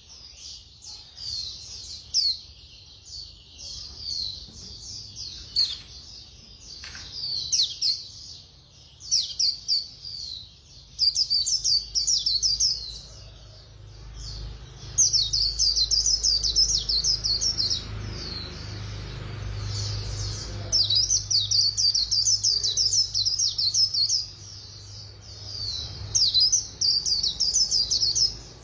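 White-eye (khuyên) singing its fast chattering 'líu' song: rapid high twittering notes in short phrases, then long unbroken fast runs in the second half. A faint steady low hum lies underneath.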